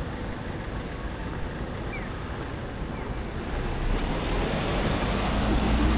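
Steady rushing noise of wind on the microphone over outdoor city ambience, growing louder with a low rumble over the last two seconds.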